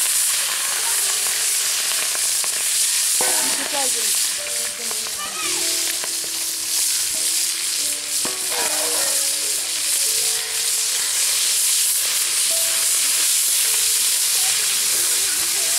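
Small shrimp frying in hot oil in a wok: a loud, steady sizzle.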